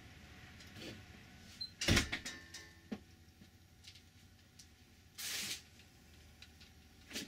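A sharp knock with a brief metallic ring about two seconds in, followed by a few light clicks and a short hiss a little after five seconds, over a low steady hum.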